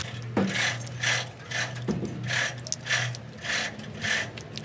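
Hand rubbing grease onto a dumper truck's steel axle spindle: rhythmic rubbing strokes, about two a second.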